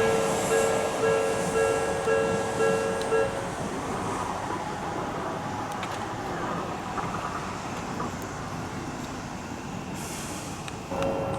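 Japanese level-crossing warning bell ringing its repeated electronic dings over the noise of a train, which fades. The bell stops about three seconds in and starts again, slightly higher, near the end as the crossing closes for the next train.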